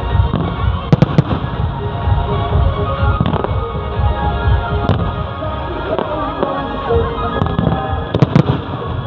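Aerial fireworks display: a steady run of deep booms from bursting shells, with sharp cracks about a second in and a cluster of louder cracks near the end, over music.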